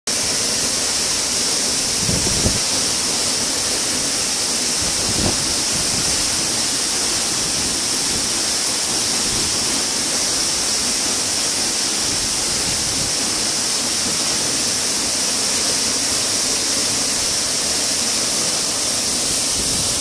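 Waterfall crashing onto rocks: a loud, steady rushing of falling water, with two brief low thuds about two and five seconds in.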